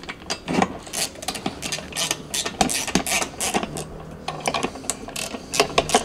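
Ratchet handle with a hex bit clicking in short irregular runs while bolts are driven into a metal latch bracket, with small metal clinks and knocks among the clicks.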